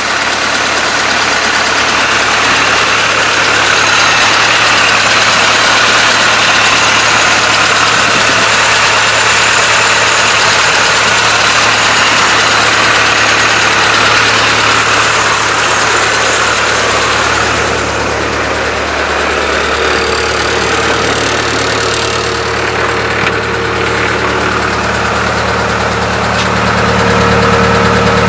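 A Toyota pickup's carbureted four-cylinder engine idling steadily, just started cold after months of sitting. The exhaust is unfinished and leaks at a gasket near the header. About two-thirds of the way through, the sound turns duller and deeper.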